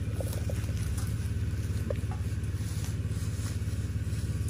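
An engine idling steadily, a low even hum, with a few faint short squeaks in the first two seconds.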